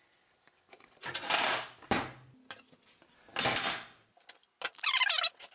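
Steel airgun target being handled and slid on a tabletop: two rough metal scrapes and clatters, the first about a second in and the second a little past the middle. A short, wavering high squeak near the end.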